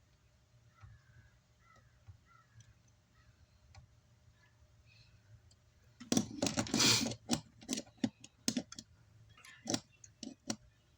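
Clicks and clatter of tools and small parts being handled on an electronics repair bench. After a quiet start there is a brief louder rustling clatter, then a run of sharp clicks.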